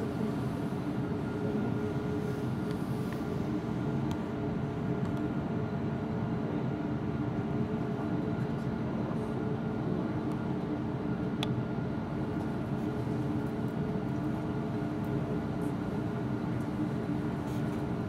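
Steady mechanical hum over a low rumble, holding several fixed tones at an even level, with one faint click about eleven seconds in.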